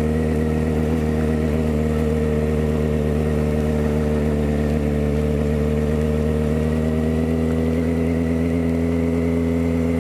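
Motorcycle engine running steadily while riding, its pitch rising slightly over the last few seconds as it picks up speed.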